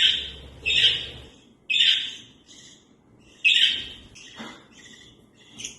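Budgerigar chirping: four loud, short calls about a second apart, then softer, quicker chatter near the end.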